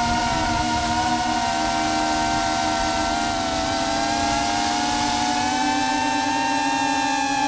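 DJI Avata 2 FPV drone's motors and propellers whining steadily, the pitch drifting slightly up and down as the throttle changes in flight.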